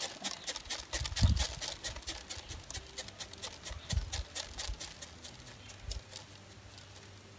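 Mahangu (pearl millet) grain rattling and pattering in a flat woven basket tray as it is shaken and tipped to sort the grain, a quick run of small dry clicks. A few low thuds come in between, and the rattle dies away near the end.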